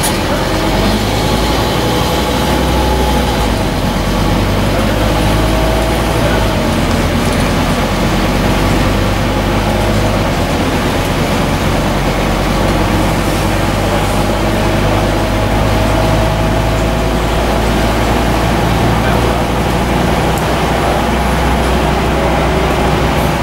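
Onboard sound from the upper deck of a Scania N230UD double-decker bus on the move: a steady low engine rumble and road noise, with a faint whine that rises and falls as the bus speeds up and slows.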